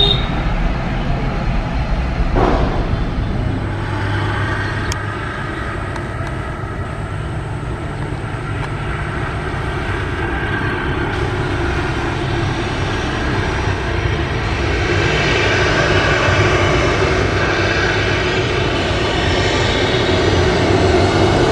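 Boeing 737 jet engines running on the runway, growing louder over the last several seconds as power comes up for the takeoff roll, with a steady whine over the engine noise.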